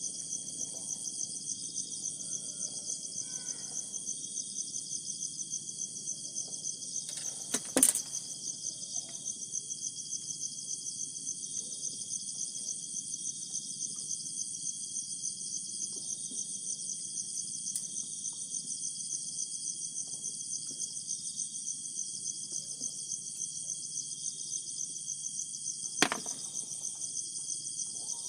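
Steady insect chorus: a high, rapidly pulsing trill with a lower song swelling about once a second beneath it. Two sharp clicks cut through, one about eight seconds in and one near the end.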